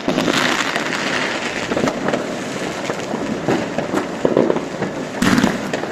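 Fireworks going off in dense succession: continuous crackling packed with many overlapping bangs, starting abruptly.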